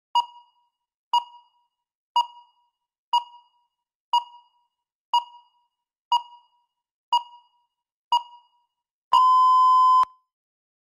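Countdown timer beeping: nine short beeps at the same pitch, one a second, then one long beep of about a second as the timer reaches zero, marking that the speaking time is up.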